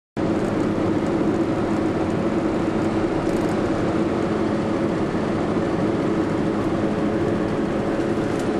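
A car driving at speed, heard from inside the cabin: a steady engine hum over road and tyre noise.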